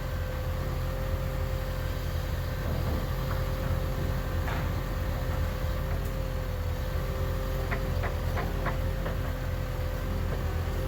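Heavy equipment engine running steadily at a constant speed, with a steady whine above the hum and a few short squeaks near the end.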